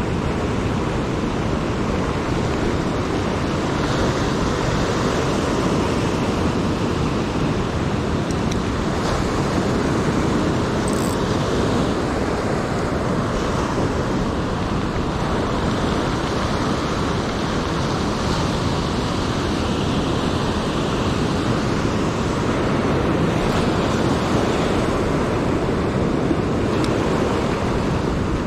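Ocean surf breaking and washing over a stony beach: a steady rushing noise.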